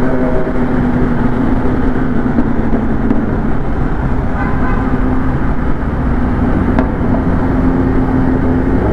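Motorcycle engines running steadily at road speed through an underpass, the rider's own Kawasaki Ninja ZX-10R inline-four among them, under a dense rush of wind and road noise.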